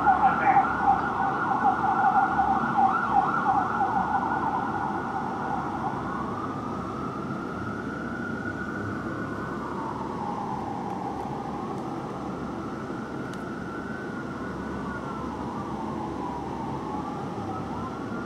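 Fire engine siren, starting in a fast yelp and switching after about five seconds to a slow wail that rises and falls every few seconds, over a steady hum of city traffic.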